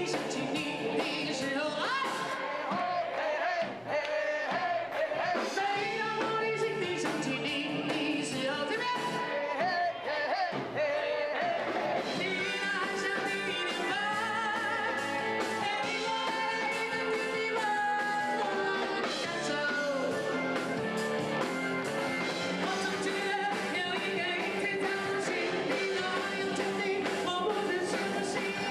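A woman singing a Chinese-language love song into a microphone, backed by a live band with guitars and drums.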